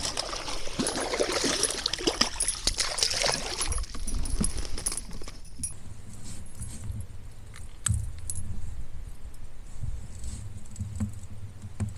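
A hooked largemouth bass splashing at the surface as it is reeled in and landed in a kayak, with metallic jingling and clicking. The splashing dies down about halfway through, leaving quieter handling sounds.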